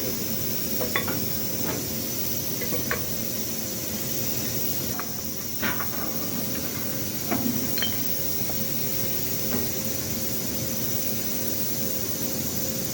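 Scattered metallic clinks and knocks of tools on metal fittings as a cracked precipitator insulator is worked loose, over a steady machinery hum.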